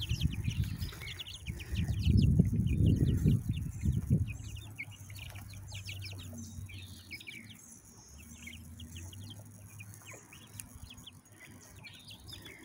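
A flock of young chicks peeping continuously, many short high chirps overlapping. A low rumbling noise is the loudest thing during the first four seconds, then fades away.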